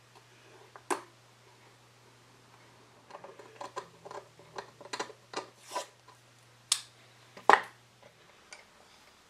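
Small chisel blade scraping and picking at old wood and glue along the edge of an antique writing slope: a run of short scratchy clicks, then one louder knock on the workbench near the end.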